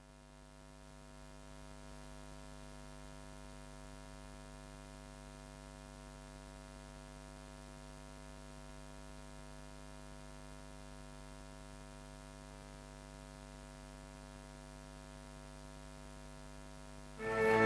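Faint, steady electrical mains hum, a stack of unchanging tones, with no other sound over it. Loud orchestral music with brass comes in just before the end.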